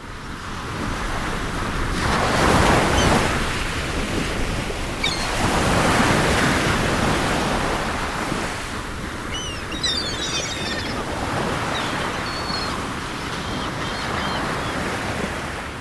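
Sea waves washing and splashing with wind buffeting the microphone, surging louder twice in the first several seconds. A few short high chirps come through around the middle.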